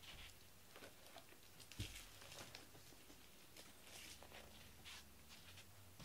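Near silence: quiet room tone with faint scattered soft ticks and one soft thump about two seconds in.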